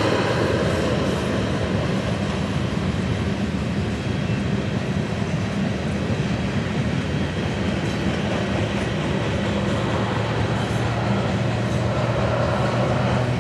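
Freight train of covered hopper cars rolling by, a steady rumbling rail noise, as a crop-duster plane's propeller engine fades away at the start. An engine drone starts to build again near the end.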